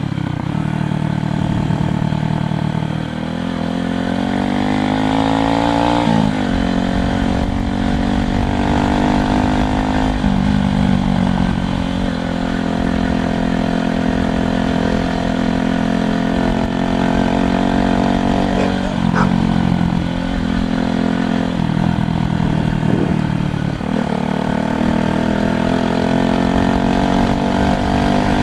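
A motor vehicle engine runs steadily for the whole stretch. Its pitch climbs and then drops sharply several times as it accelerates.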